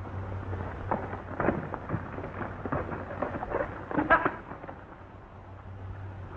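Horse's hooves thudding on dirt as a horse is ridden in and pulled up, the strokes loudest about four seconds in, over the steady low hum and hiss of an old film soundtrack.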